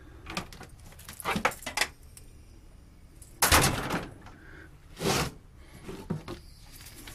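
Rummaging through coils of electrical cable: a series of knocks, clunks and rustles as the coils are pulled about and moved, the loudest two about three and a half and five seconds in.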